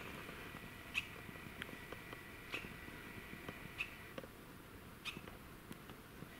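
Faint, short, high-pitched chirps from a small wild animal, repeated about once every second or so, over a thin steady whistle-like tone that stops about four seconds in.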